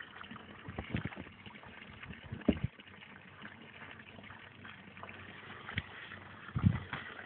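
Faint splashing and trickling of water while a hooked carp is played on a pole, with a few dull bumps, the loudest near the end.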